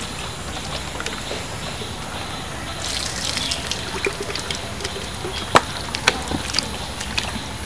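Muddy water sloshing and trickling in a dug hole, growing livelier about three seconds in, with a few sharp clicks or splashes, the loudest about five and a half seconds in.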